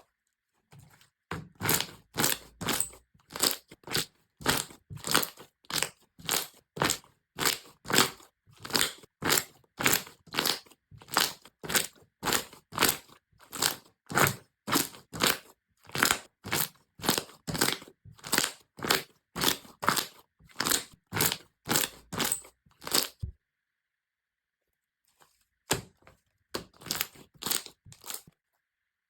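Crunchy slime being worked over and over, a crackling crunch about twice a second. It stops about 23 seconds in and resumes briefly near the end.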